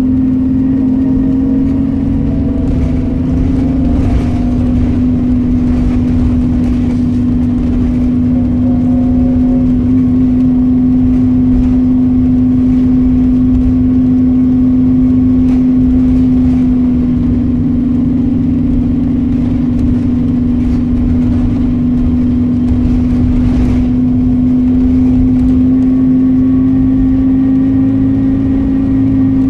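Volvo B7RLE single-deck bus with a ZF automatic gearbox, heard from inside the passenger saloon on the move: a loud steady drivetrain drone over low road rumble. The pitch shifts slightly a couple of times, and faint rising whines come in near the start and again after about eight seconds.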